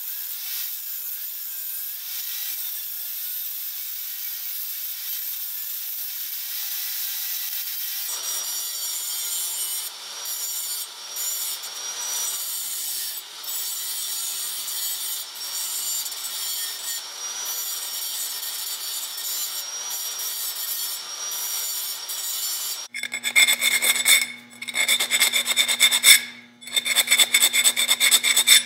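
Handheld angle grinder cutting notches into a steel shower-rod tube, grinding steadily with short breaks from about eight seconds in. About 23 seconds in it gives way to short rasping strokes on the tube over a steady low hum.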